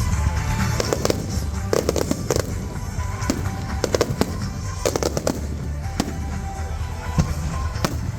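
Fireworks exploring overhead: repeated sharp bangs and crackles at irregular intervals, several a second at times, over a continuous low rumble.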